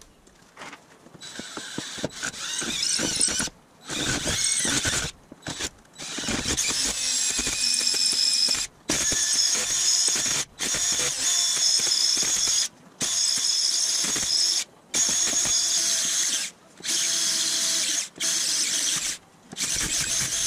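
Cordless drill spinning a bit in the mounting-hole boss of a prewar Marchal headlight shell, cutting metal with a high-pitched whine. It runs in stretches of a second or two, stopping briefly about ten times, as the straight-through hole is reshaped into a recessed seat for a bolt.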